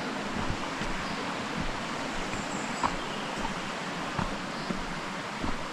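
Steady rush of flowing river water, with a few soft knocks at uneven spacing.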